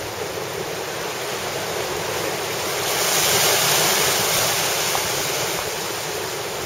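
Water rushing and foaming past the stern of a fast-moving sailboat, with a following sea breaking behind it and wind on the microphone. The rush swells louder about three seconds in, then eases a little.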